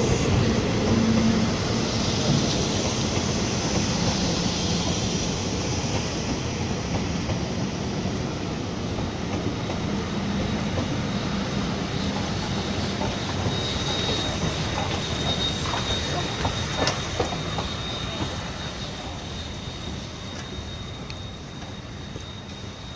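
Passenger train of blue coaches with the DT668 steam locomotive coupled behind, rolling past on the rails: steady wheel-on-rail noise, a high wheel squeal starting a little past the middle, and a few clicks over rail joints, fading as the train moves away.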